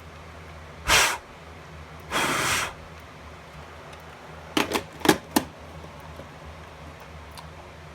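Two breaths of air blown out, a short puff and then a longer blow, clearing test smoke from a smoke detector. They are followed about two seconds later by a quick run of four sharp clicks.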